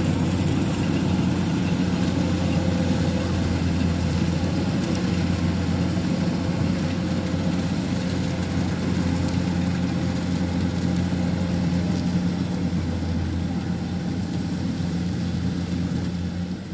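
Kubota DC-70 rice combine harvester's diesel engine running steadily under load while cutting and threshing rice, a continuous low drone.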